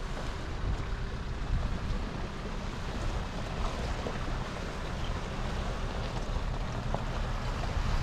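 Wind buffeting the microphone: a steady, rumbling noise with a few faint ticks.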